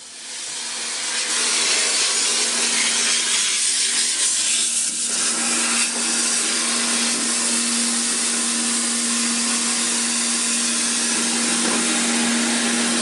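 Furnace duct-cleaning equipment rushing air through the ductwork: a loud, steady hiss with a steady low hum under it, building up over the first second or so and then holding.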